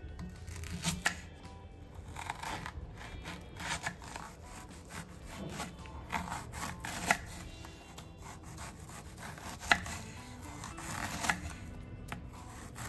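Kitchen knife slicing raw green banana on a wooden chopping board: irregular knocks of the blade through the firm flesh onto the board, a few sharper than the rest. Soft background music plays underneath.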